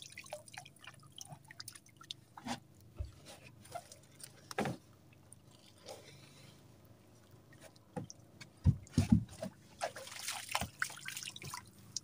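Water dripping and trickling, with scattered small clicks and a few dull knocks about two-thirds of the way through, then a short spell of denser splashing.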